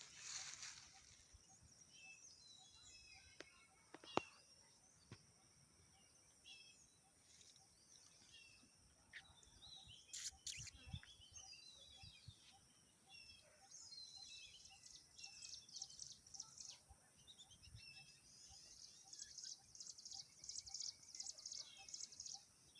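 Several birds chirping and singing in fast high trills, busier in the second half, with a faint low note repeating about twice a second behind them. A sharp click sounds about four seconds in.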